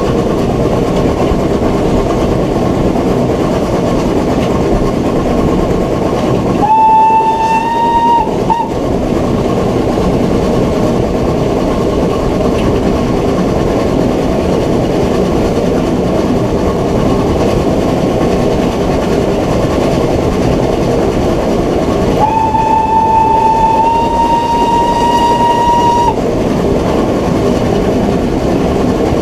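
BR Standard Class 9F 2-10-0 steam locomotive 92203 under way, with steady running noise. The whistle sounds twice: a short single-note blast of under two seconds, then about a quarter-minute later a longer blast of about four seconds that steps up slightly in pitch.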